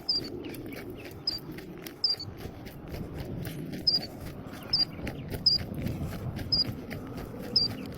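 Killdeer giving short, high single-note calls, about eight of them at roughly one a second, over crunching footsteps.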